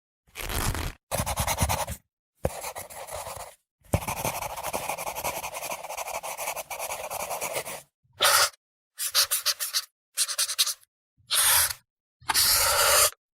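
A run of separate short sound effects played back to back, each cut off into silence: a few brief noisy sounds, one longer noisy sound of about four seconds with a fast rapid pulsing, then five short sounds near the end.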